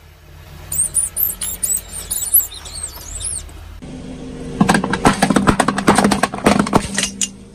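Rubber ducks squeaking in a quick string of high, bending squeaks as a car tyre rolls over them. After a cut, a car engine runs low and steady while the tyre crushes a row of aluminium drink cans, a dense, loud crackle of crumpling metal for about three seconds.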